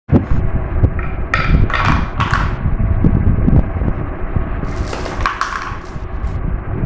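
Marbles rolling and rattling down a marble run track: a steady rolling rumble full of small clicks, with bursts of brighter clinks about a second in and again around five seconds in.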